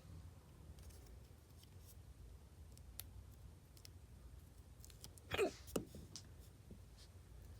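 Faint scattered clicks and taps from handling nail polish strips and nail tools. About five seconds in comes a short, louder sound that slides in pitch, followed quickly by a second, shorter one.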